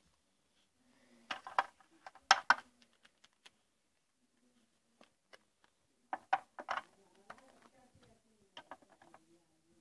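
Small toy pieces being handled, knocking and clicking together in a few short clusters, over a faint low murmur.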